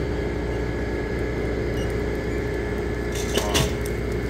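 Steady mechanical hum with a low rumble. From about three seconds in, a loaded wire shopping cart rattles and clicks as it is pushed out through a doorway.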